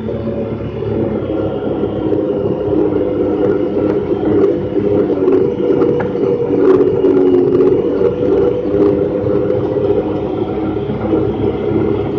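Honda Pioneer 1000-5 side-by-side's parallel-twin engine running steadily at cruising speed on a dirt trail, heard from inside the open cab, with a few faint ticks.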